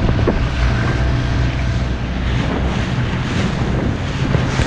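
Small outboard motor on an inflatable dinghy running at speed, a steady low drone under wind rushing over the microphone.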